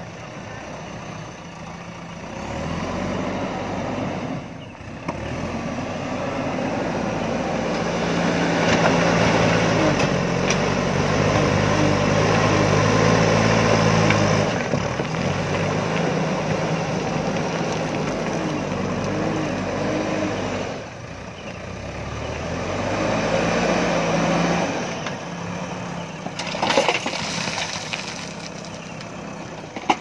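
JCB 3DX backhoe loader's diesel engine revving up and dropping back again and again as the front loader scoops gravel and lifts its bucket. It is loudest in the middle stretch, and there are a few sharp knocks near the end.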